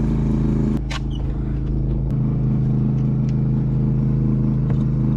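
An engine aboard the boat running steadily with a low, even hum, and a single sharp click about a second in.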